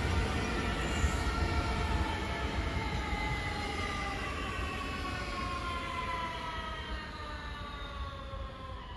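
ÖBB Cityjet (Siemens Desiro ML) electric multiple unit moving away along the track: its electric traction drive gives a whine of several tones that falls steadily in pitch over wheel-on-rail rumble, the whole sound slowly fading.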